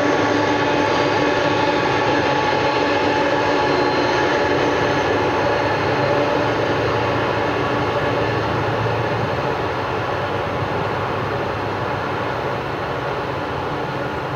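Boeing 747-400 Large Cargo Freighter's four Pratt & Whitney PW4062 turbofan engines running at taxi power: a steady whine of several tones over a low hum. It gets slowly quieter as the aircraft turns and taxis away.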